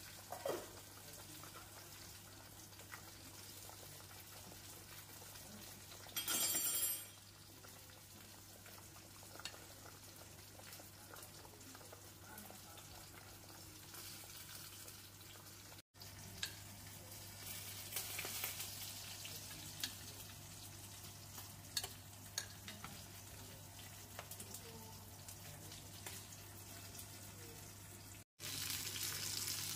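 Pot of fish soup simmering on a stovetop: a faint, steady bubbling hiss over a low steady hum, with a brief louder rush about six seconds in.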